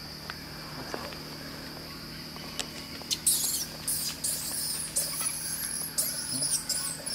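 Infant macaque squealing in repeated high, wavering shrieks from about three seconds in, over a steady high insect drone.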